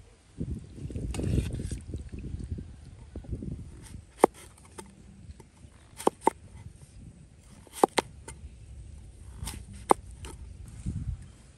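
A cleaver chopping through a firm vegetable onto a thick wooden chopping block: a handful of sharp knocks at irregular intervals, some in quick pairs. A low, muffled rumbling fills the first few seconds.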